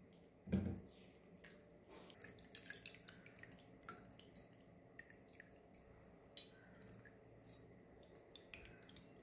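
Hands squeezing soaked tamarind in a steel bowl of water: faint wet squelches and drips of tamarind water falling back into the bowl, with a soft thump about half a second in.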